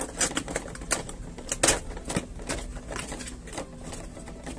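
Cardboard box being opened by hand, its top flap pulled up: an irregular string of sharp clicks and crackles from the packaging.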